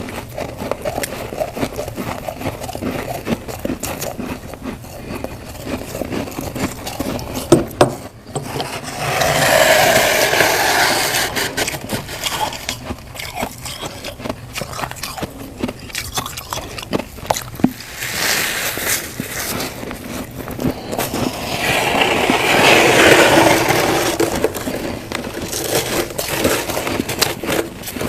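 Crunchy humidifier frost being bitten and chewed: a run of sharp crunches and scraping, with two longer, louder stretches of dense crunching, one about nine seconds in and one near the end.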